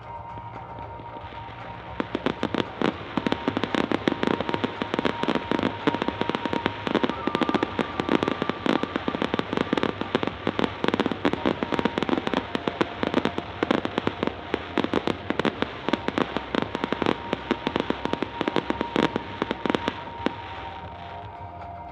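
Fireworks crackling in a dense, rapid stream of sharp pops, starting about two seconds in and dying away near the end, with music underneath.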